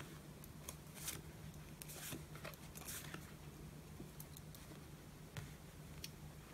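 Tarot cards being handled: a few soft swishes and light taps of cards sliding and being set down, over a faint steady low hum.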